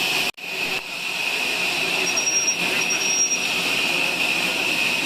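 Sawmill saw running with a steady high whine, cutting out abruptly for a moment just after the start, with a thin high squeal for about a second near the middle.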